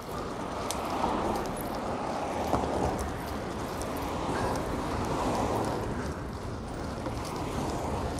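Steady wind and road noise from riding a fixed-gear bicycle on city streets, with scattered faint ticks.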